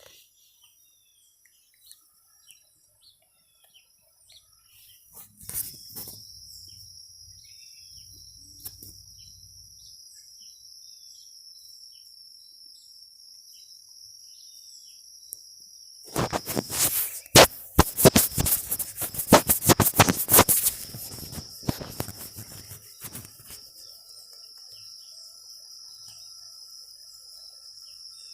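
High-pitched steady trilling of insects such as crickets. Past the middle, a loud crackling rustle lasts about five seconds.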